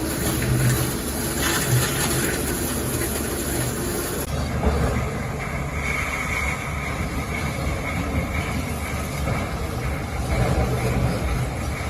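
Heavy machinery running steadily: an excavator working a rock saw attachment. The sound changes abruptly about four seconds in, and a faint high whine comes in a little later.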